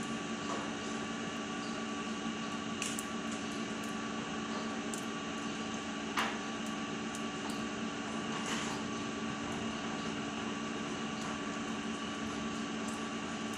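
A steady hum of several constant tones over faint background noise, with a few light clicks scattered through it.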